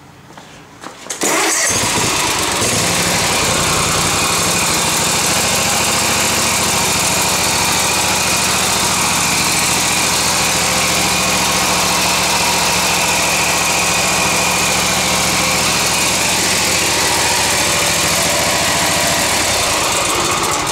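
A freshly swapped-in Kawasaki V-twin riding-mower engine starts about a second in and settles into a steady run.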